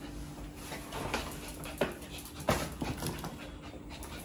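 Maltese dog panting excitedly while circling, with a few sharp taps about two and two and a half seconds in.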